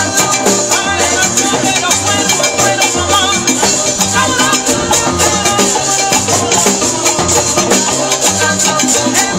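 Live salsa band playing, with drums and a shaker over a steadily repeating bass line.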